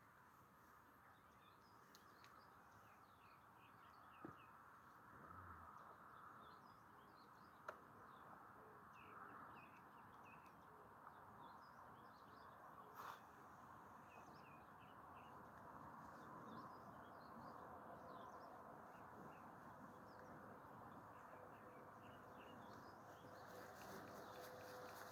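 Faint birdsong outdoors: scattered short chirps over a steady hiss of background noise, with a few soft clicks.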